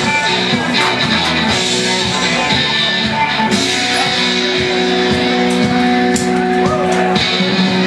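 Music with guitar and a steady beat.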